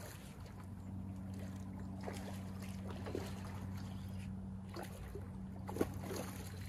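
A steady low engine hum, with faint scattered clicks and one sharper click about six seconds in.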